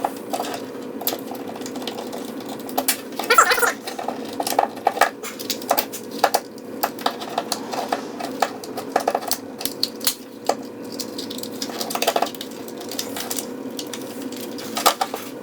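Small clicks and light clatter of a screwdriver and plastic parts while an original Xbox controller is being unscrewed and taken apart, over a steady low hum. Brief pitched sounds come about three and a half and twelve seconds in.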